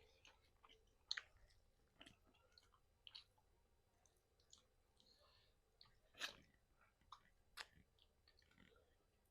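Faint chewing of fried chicken, with scattered wet mouth clicks and smacks, a few of them louder, about a second in and again around six and seven and a half seconds in.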